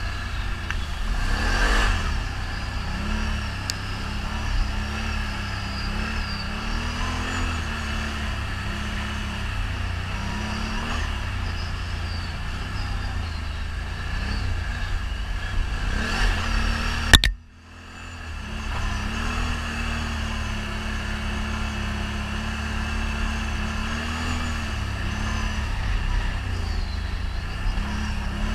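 ATV engine running with the revs rising and falling as it is ridden. About two-thirds of the way through there is a sharp click and the sound cuts out for under a second before the engine returns.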